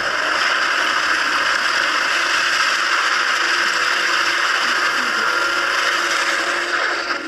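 Action-movie sound played through the Realme Narzo 30 smartphone's small loudspeaker: a steady, dense rush of noise, thin with little bass.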